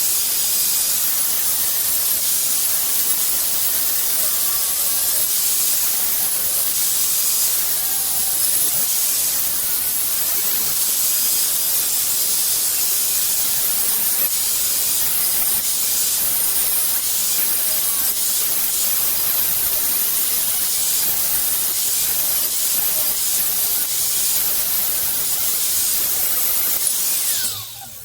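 A metal-cutting tool hissing steadily as it cuts scrap steel, then stopping suddenly near the end.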